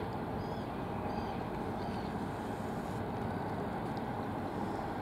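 Steady low outdoor rumble, even throughout, with a few faint high chirps.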